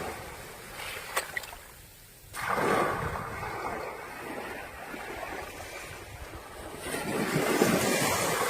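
Surf washing up on a beach: one wave surges in sharply about two seconds in and fades, and another swells near the end.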